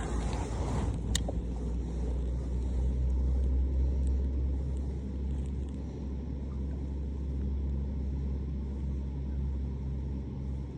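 Wind buffeting the microphone: a steady low rumble that swells and eases slowly, with a single sharp click about a second in.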